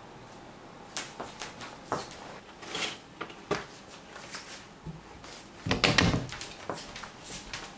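Rustling of clothing and light handling knocks as someone changes into a T-shirt, with a louder burst of rustle and thumps about six seconds in.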